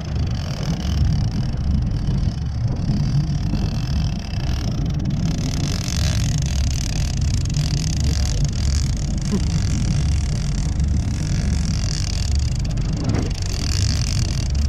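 Motorboat engine running at a steady low rumble, with a hiss of wind and water over it.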